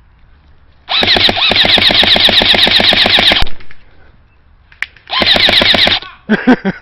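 Airsoft gun firing fully automatic in two bursts, a long burst of about two and a half seconds and then a short one of about a second, each a rapid rattle of shots.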